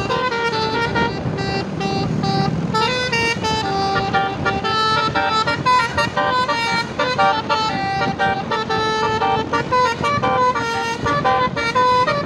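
Tour bus's Basuri telolet horn playing a fast melody of short horn notes that step up and down in pitch without a break.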